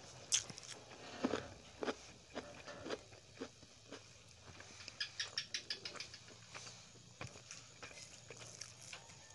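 Close-up eating sounds from hand-eating: chewing and wet mouth clicks, with fingers working rice and soft food on the plate. Short, irregular crackles, with a quick run of clicks about five seconds in.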